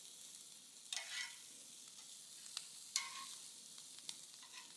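Shrimp sizzling faintly on a charcoal grill grate as they are turned with metal tongs, with a few sharp clicks of the tongs against the grate.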